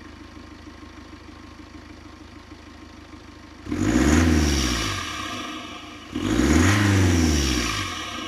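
BMW B47 2.0-litre four-cylinder turbodiesel, fitted with a Darkside cold air intake, idling and then revved twice, each rev climbing and falling back over about two seconds. A whoosh of intake air comes with each rev.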